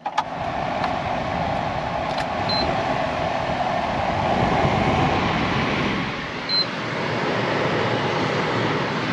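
Cab heater and ventilation blower fan of a 2001 Mercedes-Benz Unimog Landstar switched on and running, air rushing steadily through the vents. It is blowing strongly.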